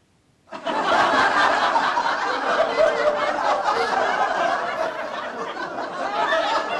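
Laughter from many people at once, breaking in suddenly about half a second in and carrying on steadily.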